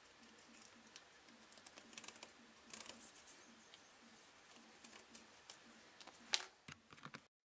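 Marker pen tracing around a paper template on a perforated metal sheet, its tip making faint, irregular clicks and scratches as it rides over the holes, with a single louder click near the end. The sound cuts off abruptly just before the end.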